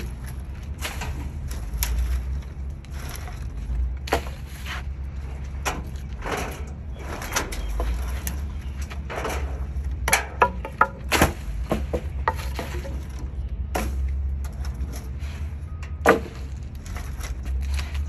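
Cut tree branches and logs being thrown onto a loaded truck tray: wooden clunks and clatters at irregular intervals, with a quick run of them about ten seconds in and one loud knock near the end, over a steady low rumble.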